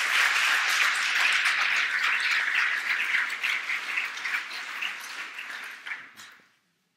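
Audience applauding: dense clapping that thins out and fades away near the end.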